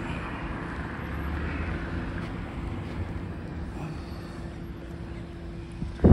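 Outdoor street noise: a steady low rumble of road traffic. Right at the end comes a brief loud thump on the phone's microphone.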